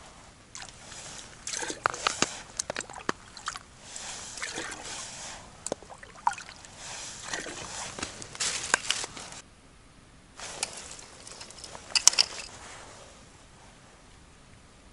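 Close handling sounds at an ice-fishing hole: rustling, small clicks and knocks, and light sloshing of water, coming in irregular bursts that die down about 13 seconds in.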